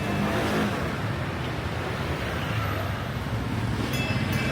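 Street traffic ambience: a steady low rumble of vehicle engines.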